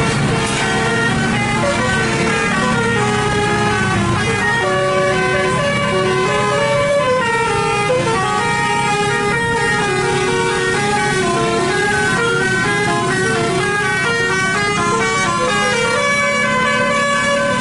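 Bus 'telolet basuri' musical air horn playing a running tune of short stepped notes, over a steady low engine hum.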